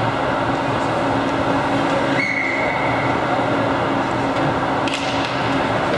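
Steady din of an ice hockey arena during play: an even wash of noise with a low hum under it, and a brief high tone a little over two seconds in.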